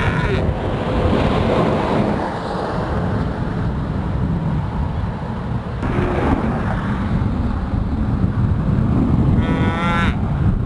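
Steady rushing noise of floodwater, with wind buffeting the microphone. A calf bawls once, loudly, near the end.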